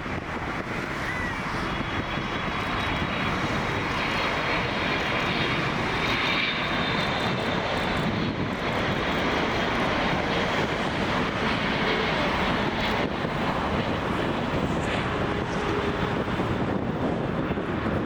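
Boeing 777 freighter's GE90 jet engines running loud and steady as the aircraft arrives, growing louder over the first few seconds, with a faint high whine over the noise.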